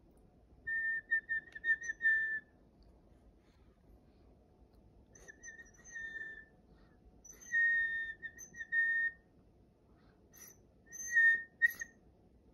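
Whistling around one high pitch, slightly warbling, in four short phrases with pauses between: the whistle-and-answer play of a whistle-activated DigiPenguins toy penguin. A few sharp ticks come near the end.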